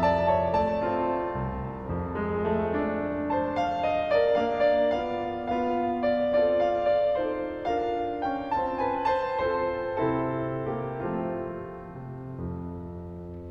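Solo piano playing a busy passage of many notes over sustained low bass notes, growing quieter over the last few seconds.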